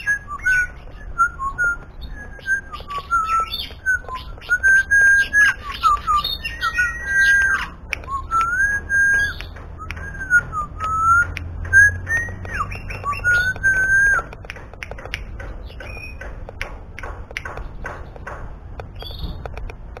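Oriental magpie-robin (kacer) singing in a cage: a run of clear whistled phrases that slide up and down in pitch, stopping about two-thirds of the way through. Short faint clicks and ticks sound throughout and carry on after the song stops.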